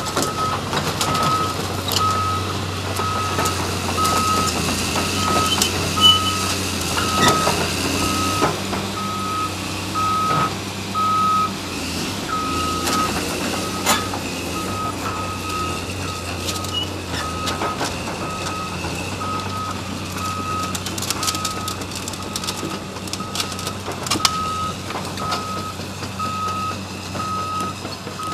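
Caterpillar hydraulic excavator's diesel engine running while a backup alarm beeps steadily about once a second. Occasional sharp clanks and crashes of demolition debris cut through.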